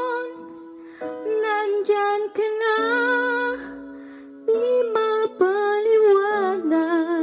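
A woman singing a Tagalog song into a handheld karaoke microphone over an instrumental backing track. She pauses twice between phrases while the backing notes carry on.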